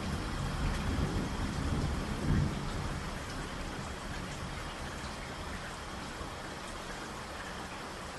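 Steady heavy rain with a deep thunder rumble that dies away about three seconds in, leaving only the rain.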